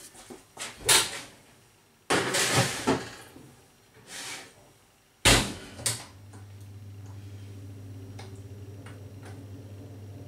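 Oven door opened, a metal baking tray of pies slid in, and the door shut with a sharp knock a little past five seconds in. After that a steady low hum sets in.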